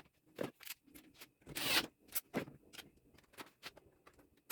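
Light clicks and rubbing from a Dyson being handled, with a longer scrape about one and a half seconds in.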